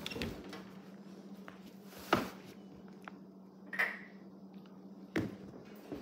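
A few short, sharp knocks and clicks, the loudest about two seconds in and others near four and five seconds, over a steady low hum.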